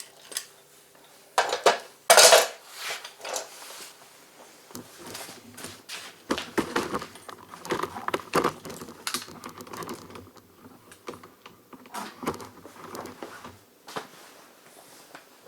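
Metal tools and parts clinking and clattering as they are handled and set down, in irregular knocks that are loudest about two seconds in.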